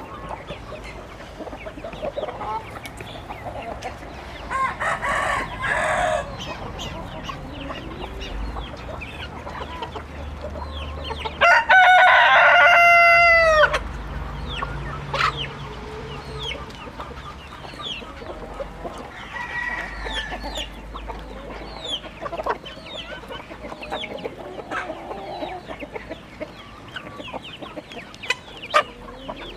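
Chickens clucking and calling, with a rooster crowing once about twelve seconds in, a loud held call of roughly two seconds. Short chirping calls run throughout.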